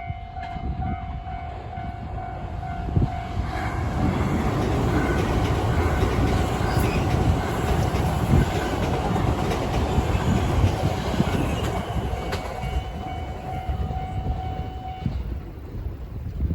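A level-crossing warning bell rings with a steady electronic tone. About four seconds in, a train passes over the crossing, louder for some ten seconds and drowning the bell. The bell is heard again as the train goes.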